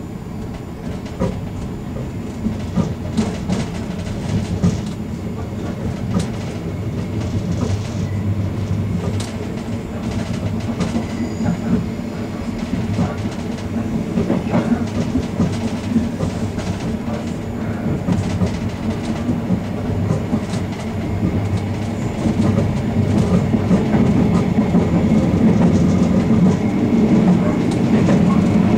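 Ganz-Mavag electric multiple unit running on the rails, heard from inside its rear cab: a steady low hum with the wheels clicking over rail joints, growing louder as the run goes on.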